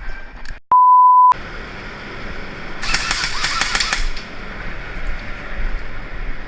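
A loud, single-pitch censor bleep, about half a second long, cut in about a second in. Then a steady outdoor background with about a second of rapid clicking around three seconds in.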